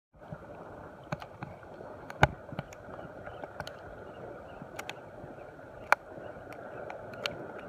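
Small spinning reel being cranked on an ultralight rod, with scattered sharp clicks and knocks, over a steady wash of sea water.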